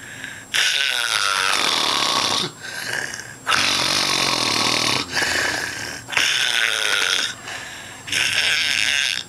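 Heavy snoring from a sleeper: four loud, rasping snores, each about a second or more long and spaced about two and a half seconds apart, with quieter breaths between them.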